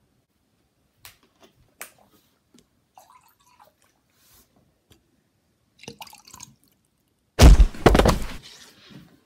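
Water dripping and pouring from a plastic water bottle, with a few light clicks early on. About seven seconds in comes a loud, close burst of pouring and bottle handling lasting about a second.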